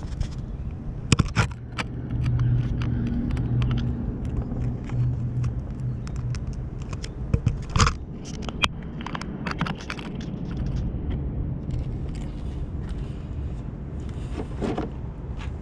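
A vehicle engine running steadily, with a few sharp knocks and scrapes scattered through.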